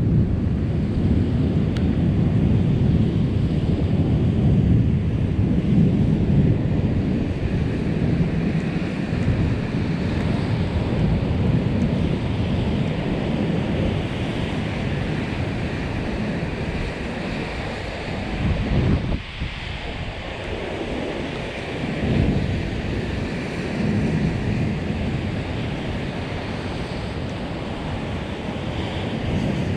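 Thunder rumbling low and continuously, with wind buffeting the microphone; the rumble eases briefly about two-thirds of the way through.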